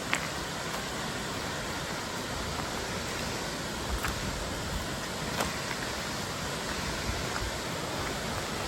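Waterfall rushing: a steady, even hiss of falling water, with a few faint ticks.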